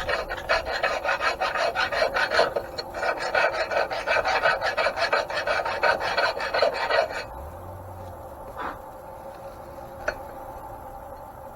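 Hand file rasping in quick back-and-forth strokes inside the rough cast bearing bore of an antique grain mill, opening it up to take a bronze oil-impregnated bushing. The filing stops about seven seconds in, followed by two light clicks.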